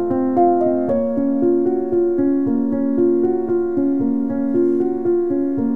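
Background piano music: a gentle, continuous run of sustained notes changing every half second or so.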